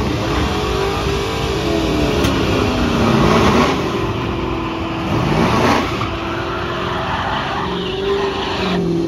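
Drag car's engine revving hard during a burnout, its pitch sweeping up and down several times as the rear tyres spin and smoke. The sound cuts off abruptly at the end.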